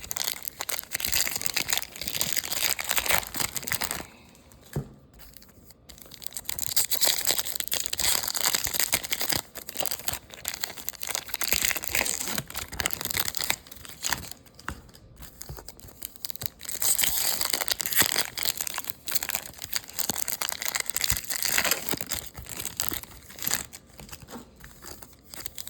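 Plastic wrappers of trading-card packs crinkling and tearing as they are opened and handled, in bursts with two short quiet pauses.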